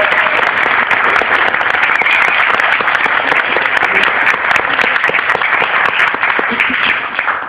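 Audience of many people applauding steadily, dying away at the very end.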